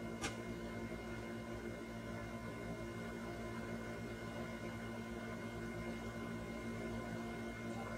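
Steady hum with several faint whining tones from a DIY T12 soldering station running on mains power while its tip heats up, with its cooling fan and 24 V power supply running. A single short click comes just after the start.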